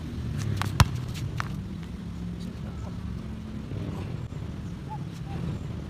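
A basketball bouncing a few times on a concrete court, sharp irregular knocks with the loudest about a second in, over a steady low background rumble.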